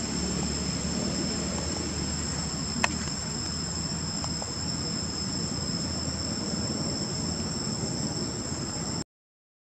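Insects droning steadily in two high, unbroken tones over a low background rumble. A single sharp click comes about three seconds in, and all sound cuts off suddenly near the end.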